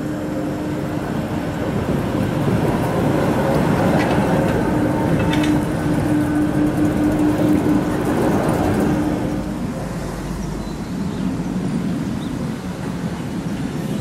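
A tram rolls past close by on a curved track at low speed: wheels rumbling on the rail under a steady hum, with a few sharp clicks around the middle. The sound eases off after about nine and a half seconds as it moves away.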